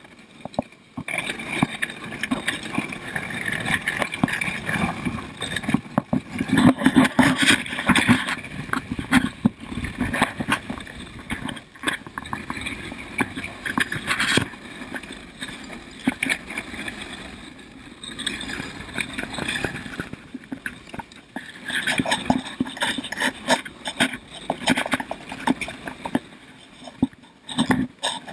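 Dog sled pulled by a team of huskies over snow: the runners scraping and the sled frame clattering, with many quick knocks and clicks that rise and fall in strength.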